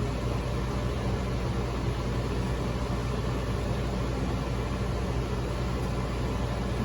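Steady machinery drone: an even hiss of fan or air noise over a low constant hum, with no change.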